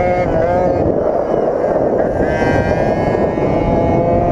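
A GoPed GSR46's small two-stroke engine running at high revs, its pitch dropping about a second in and climbing again about two seconds in as the scooter works through the corner. Wind buffets the helmet-mounted microphone underneath.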